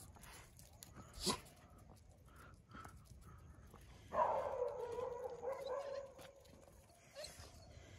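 A street dog gives one whine lasting about two seconds, starting about four seconds in; it drops in pitch and then holds steady. A single sharp click is heard about a second in.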